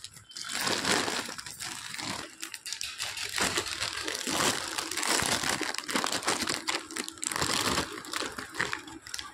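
Plastic packaging crinkling and rustling in irregular crackles as hands open a plastic courier mailer and handle the clear plastic bag inside.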